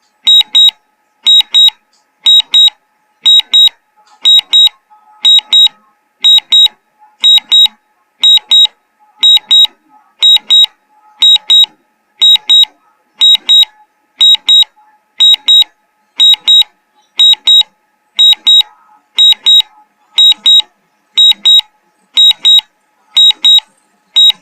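Agricultural spray-drone remote controller sounding a warning alarm: a high double beep repeated about once a second, steady and unchanging, an alert that the spray tank is empty and the drone is returning home.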